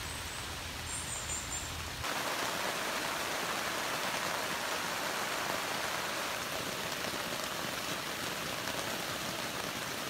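Steady rain in a pine forest, with a few short bird chirps about a second in. From about two seconds in, the rain is louder and brighter, falling steadily on the tent fabric as heard from inside the tent.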